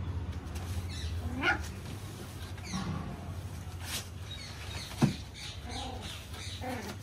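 A puppy whining and yipping in short rising and falling cries. A sharp knock sounds about five seconds in.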